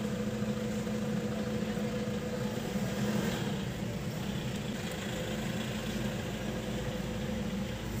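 Steady engine hum at idle, even in level and pitch, over a light hiss.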